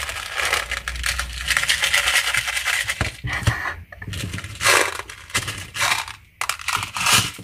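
Small plastic pearl beads clattering in a clear plastic tub in a dense rapid rattle for about three seconds. After that come a few short crackly bursts of clicking as fingers press clear slime into the beads.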